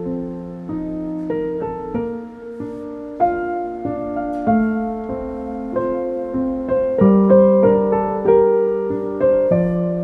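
Background piano music: a melody of single notes over held chords, a new note struck every half second or so.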